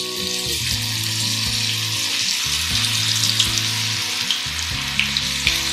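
Batter-coated soya chunk pakodas deep-frying in hot oil in a kadhai: a steady sizzling hiss with scattered crackles.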